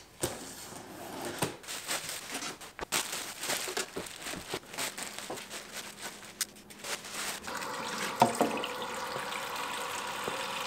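Plastic wrapping crinkling and rustling as it is pulled off appliance parts, then, about seven and a half seconds in, a kitchen tap running steadily into a stainless steel sink.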